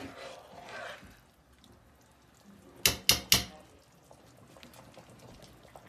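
Three quick, sharp metal clanks about three seconds in, a spoon or lid knocking on an aluminium pot of boiling borscht, over a faint steady bubbling.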